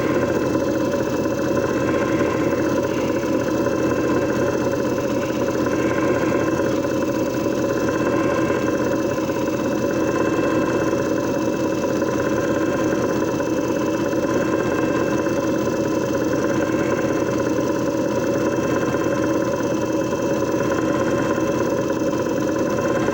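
JFJ Easy Pro disc repair machine running steadily, its motor droning with a few steady higher tones over it.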